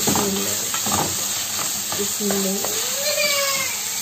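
Liver strips, onions and green peppers frying in oil in a pan, sizzling steadily while a wooden spoon stirs and scrapes through them in repeated strokes. A brief pitched sound rises and falls about three seconds in.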